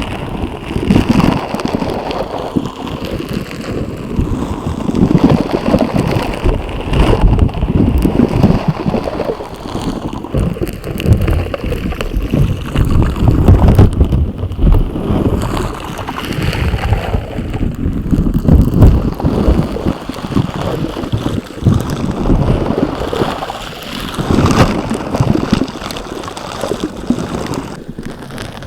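Slime being squished and worked, a continuous wet sound that swells and eases every few seconds.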